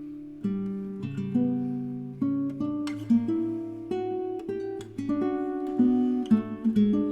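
Background music: acoustic guitar playing a gentle melody of plucked and strummed notes.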